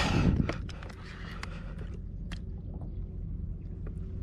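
Steady low wind rumble on the microphone, with one loud rushing exhale from the angler right at the start, out of breath from a long fight with a fish, and a few scattered sharp clicks.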